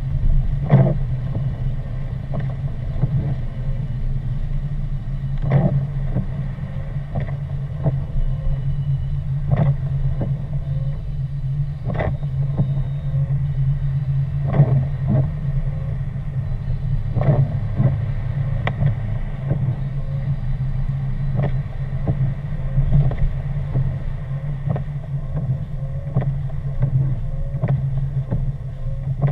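Car cabin noise while driving on a wet, slushy road: a steady low hum of engine and tyres, with sharp knocks or ticks every few seconds at irregular intervals.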